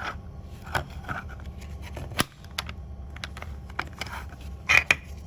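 Small plastic toy cash register parts being handled, giving scattered clicks and taps, with a sharp click about two seconds in and a quick pair near the end.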